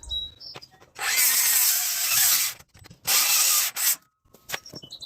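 Cordless drill running into wood twice: a run of about a second and a half, then a shorter one of under a second, with small knocks afterwards.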